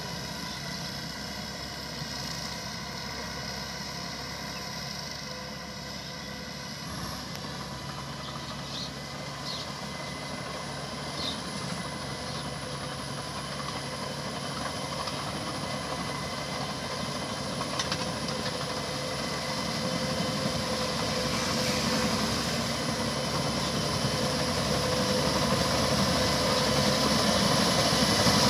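Pumpkin-harvesting machinery running: a steady engine and machine hum with several held whining tones, slowly growing louder toward the end.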